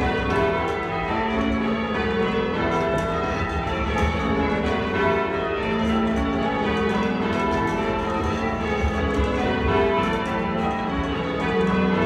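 Church bells rung in changes by a band of ringers on ropes, heard from the ringing chamber beneath the bells. Strokes follow one another in a steady, continuous rhythm, their tones overlapping.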